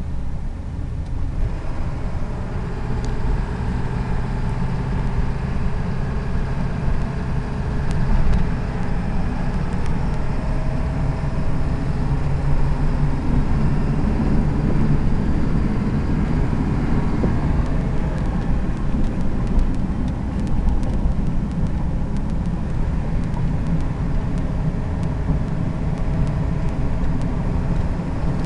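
2002 McCoy Miller Type II van ambulance driving: steady engine and road noise, the engine note shifting up and down a little. Light scattered clicks come in over the second half.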